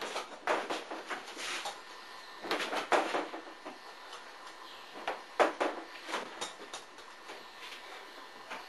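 Gloved punches landing on a hanging heavy bag in quick combinations of several blows, with pauses of a second or two between combinations.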